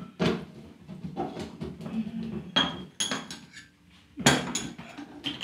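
Scattered clinks, taps and knocks of small kitchen items being handled on a wooden worktop: glass spice jars, a small metal cup and a plastic blender cup. No blender motor runs.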